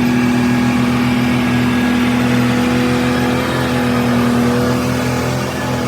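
An engine running steadily at a constant speed, a loud even hum with no change in pitch.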